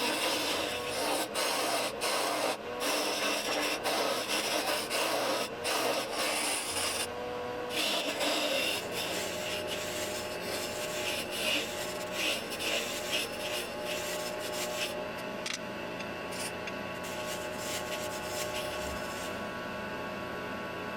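A spinning poplar blank on a wood lathe being worked with a turning tool, making a rough rasping, scraping sound. It is choppy with many short scrapes at first, then steadier from about eight seconds in.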